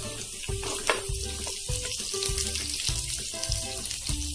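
Spiced oil sizzling in a frying pan with cumin seeds, chopped ginger and green chilli: a tempering (tadka) just dosed with asafoetida. Background music with a steady beat plays over it.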